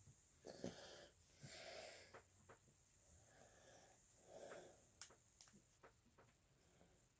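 Faint breathing and nasal exhales close to the microphone, with a few small sharp clicks and taps from fiddling with a plastic action figure and its parts, mostly in the second half.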